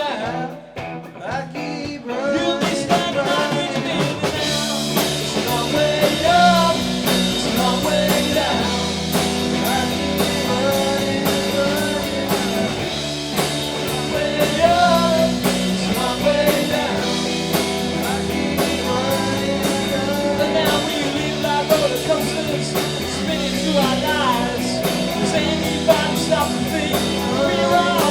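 Live rock band playing with electric guitar, bass and drum kit. After a sparse opening, the full band comes in about two to four seconds in and plays on steadily.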